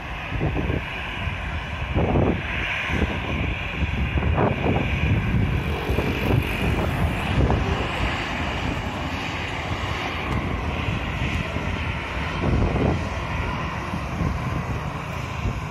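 Airliner engine noise as an aircraft passes near the runway, mixed with strong wind buffeting the microphone in irregular gusts.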